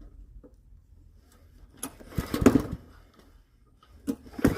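Old lawnmower engine turned over by its pull-start cord with no fuel in it, so it does not fire. There are two pulls, each a quick run of chuffing strokes from the recoil starter, about two seconds in and again near the end. The strong puffs show good compression.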